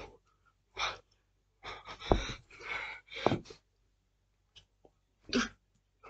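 Heavy, forceful breaths of a person doing push-ups near the end of a long set, tired: several sharp exhales, with a longer, louder run of breaths in the middle.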